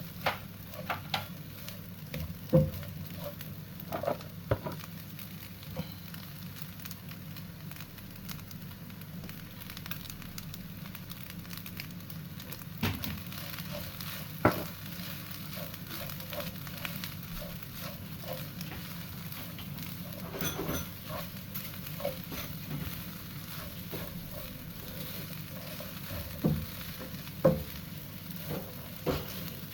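Fried rice sizzling in a hot pan as it is stir-fried, with a spatula scraping and knocking against the pan at irregular moments. A steady low hum runs underneath.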